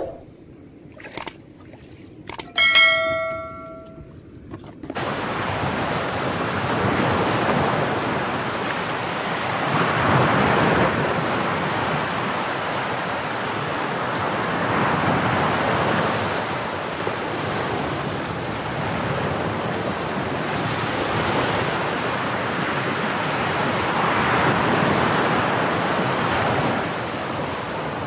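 Sea waves washing over rocks: a steady rushing that swells every few seconds, with wind on the microphone. It comes in suddenly about five seconds in, after a few clicks and a short ringing tone.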